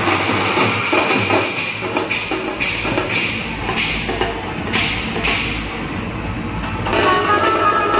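Procession drum band playing, with a string of sharp crashes between about two and five seconds in. A pitched melody joins about seven seconds in.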